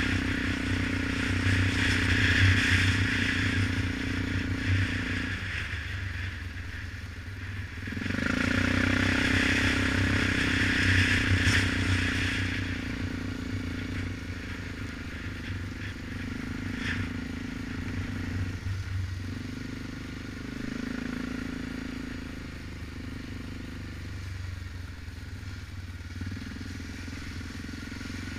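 Single-cylinder ATV engine running as the quad rides a rutted dirt trail, pulling harder for a few seconds at a time and then easing off, with wind rush and rattling of the machine over the bumps.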